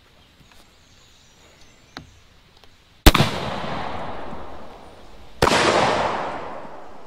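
Zeus .72-calibre big-bore PCP air rifle, tethered to an air tank, firing a shotgun load of number 8 shot in a Federal wad: a sharp, loud report about three seconds in, followed by a hissing tail, then a second report about two and a half seconds later that fades out over a second or more.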